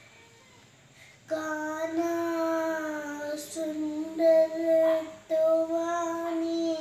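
A young girl singing, holding long, steady notes. She comes in about a second in after a short pause and breaks briefly about five seconds in.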